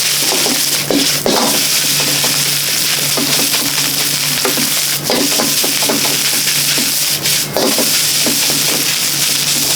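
Fried rice sizzling hard in a wok, with the ladle knocking and scraping against the pan about once a second as the rice is stirred and tossed. A steady low hum runs underneath.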